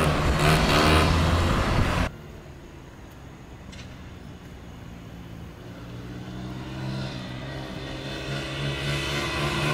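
A car drives past close by, loud for about two seconds, then cuts off abruptly. After that, a small dirt bike's engine is heard faintly and grows steadily louder as the bike approaches.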